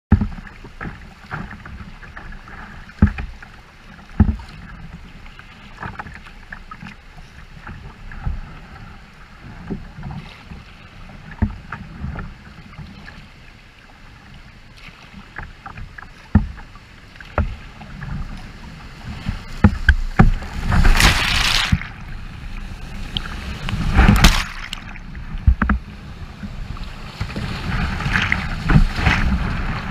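Whitewater rushing and splashing around a plastic kayak, heard close from a camera on its bow deck, with many sharp slaps and knocks of water against the hull. There are a few loud splashing surges, the biggest about two-thirds of the way through, and the rush swells near the end as the boat drops into rapids.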